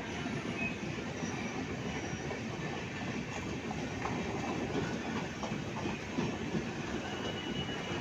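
Passenger train of the Jansewa Express running on the rails: a steady rumble and clatter of the coaches' wheels, with a few brief, faint high squeals.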